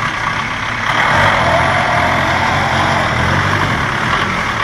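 Off-road Suzuki 4x4's engine running, getting louder about a second in and staying up, as under throttle.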